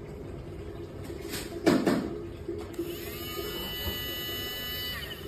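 Cordless handheld milk frother's small electric motor running, its coil whisk spinning in the air, with a steady buzz. A brief loud knock comes about two seconds in. From about three seconds in, a higher whine rises and then holds steady for about two seconds.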